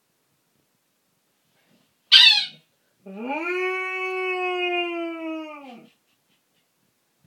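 Flat-coated retriever howling: a short high cry falling in pitch about two seconds in, then one long howl of nearly three seconds that rises, holds steady and falls away at the end.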